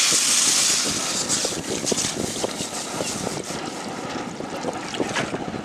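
Water poured from a bottle into a hot iron wok of sautéed vegetables: a loud hiss of steam as the water hits the hot metal, fading over the first second or two into the splash and bubble of the pouring stream.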